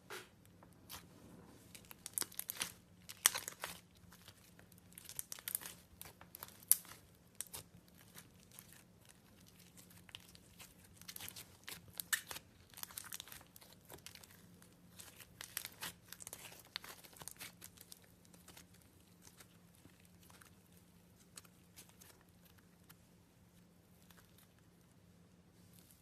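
Clay slime being stretched and pressed by hand, giving off irregular clusters of sharp crackles and tearing sounds that grow sparser toward the end.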